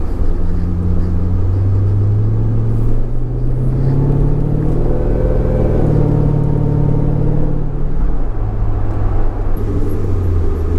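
2004 Jaguar XKR's supercharged 4.2-litre V8 running on the road, heard from inside the cabin. The engine note rises in pitch a few seconds in, holds, and drops back down about eight seconds in.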